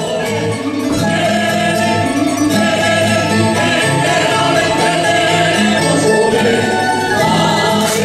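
Live Aragonese jota music played for dancing: a band of plucked strings with castanets clicking throughout.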